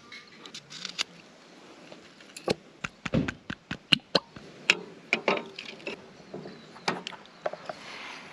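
Irregular clicks, taps and knocks of hands working with a knife, a lemon and a sauce bottle over a metal mess tin on a camp stove, thickest about three to four seconds in.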